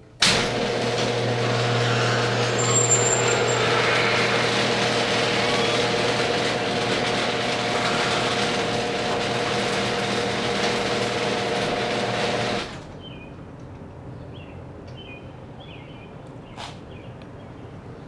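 Electric garage door opener raising a sectional overhead door under normal operation: the motor's steady hum and the noise of the door travelling up start suddenly and stop about twelve and a half seconds in as the door reaches the top.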